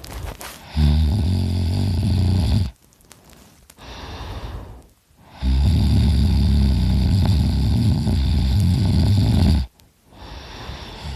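A man snoring very loudly through an open mouth, his uvula vibrating: a rattling snore of about two seconds a second in, then a longer one of about four seconds, with quieter breathing in between.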